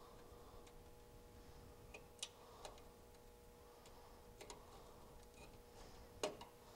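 Scattered small clicks and taps of a screwdriver working terminal screws and wires in a steel junction box, the loudest about six seconds in, over a faint steady hum.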